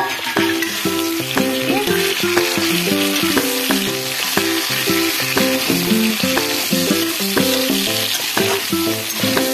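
Chopped tomatoes sizzling in hot oil with fried onions in a wok, stirred with a metal spatula. Plucked-string background music with a steady run of notes plays over the sizzling.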